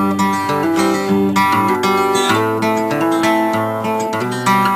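Music on a strummed acoustic guitar, chords and plucked notes changing every half second or so at a steady loudness.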